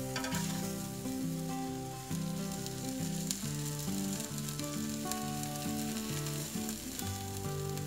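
Tortas sizzling as they toast in oil on a stovetop comal, a steady crackle with fine pops. Background music with held notes plays along.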